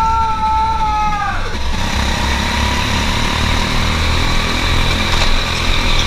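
Go-kart engines running at racing speed, heard from on board the driver's kart, a steady dense mechanical drone with a pulsing low rumble.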